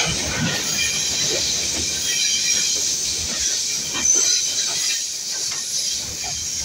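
Train running through a railway tunnel: a steady hiss and rumble of wheels on rail, with a high metallic whine of the wheels and scattered knocks from the track. It gets a little quieter in the second half as the train nears the tunnel mouth.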